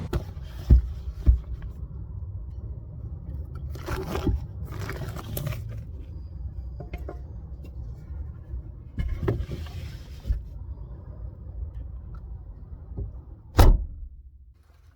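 Wood offcuts being handled: pieces knock and scrape against one another, with a few sharp knocks early on, two longer scraping stretches, and one loud knock near the end, over a low steady rumble.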